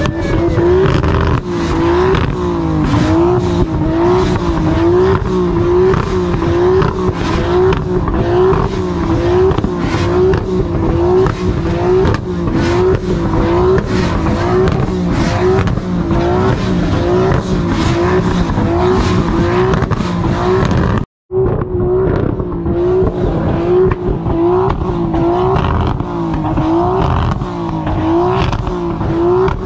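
Loud car engine running hard, with a mid-pitched tone that wavers up and down a little over once a second. The sound drops out for a moment about two-thirds of the way through, then carries on the same.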